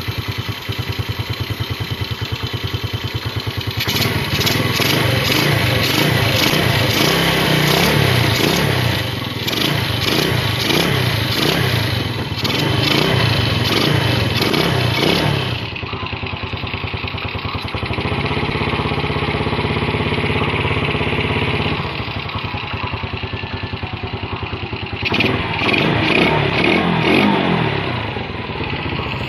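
Yamaha Vega ZR's single-cylinder four-stroke engine running just after a combustion-chamber clean with carbon cleaner, with the air-filter box off and the carburetor not yet finally tuned. It runs steadily at first, is revved up and down for about ten seconds, settles back to an idle, then is revved again briefly near the end.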